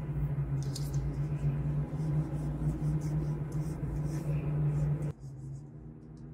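Stylus strokes scratching and tapping on the screen of a Huion Kamvas Pro 19 pen display, many short strokes in quick succession, over a steady low hum. About five seconds in the hum drops away sharply and the faint pen strokes go on.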